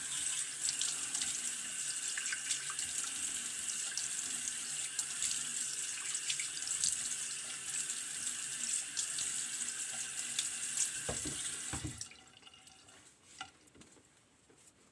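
Bathroom sink tap running while a face is rinsed, with small splashes of water. The tap is shut off abruptly about twelve seconds in.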